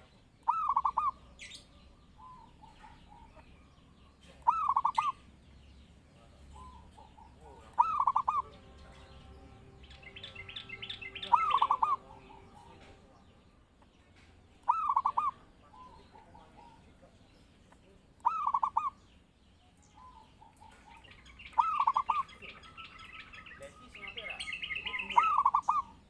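Zebra dove (perkutut) singing its rapid, stuttering coo phrase eight times, about once every three and a half seconds, each loud burst trailing into softer notes. Higher chirping joins in near the middle and again near the end.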